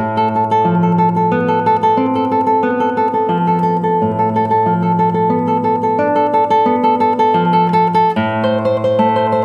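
Classical nylon-string guitar playing a tremolo passage at a slow tempo: one high note on the top string picked rapidly and repeatedly while a thumb-plucked bass line moves underneath. The harmony changes about eight seconds in.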